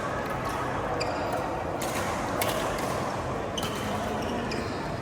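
Badminton rally: sharp racket hits on the shuttlecock about once a second, with short shoe squeaks on the court floor over a murmur of voices.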